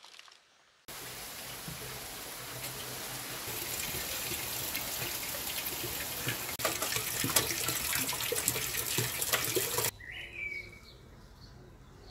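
Rain falling steadily, a dense hiss with many small drop ticks, starting suddenly about a second in and cutting off near ten seconds. A bird chirps once just after.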